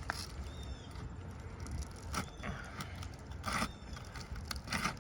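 Asphalt roof shingle being worked loose with side-to-side pressure: scraping and crackling in several short bursts as its seal lets go.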